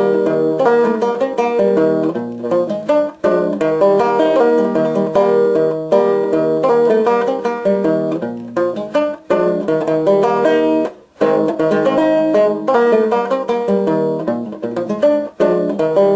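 Solo banjo playing a polka tune, a quick run of picked notes with a few short breaks between phrases, the longest about eleven seconds in.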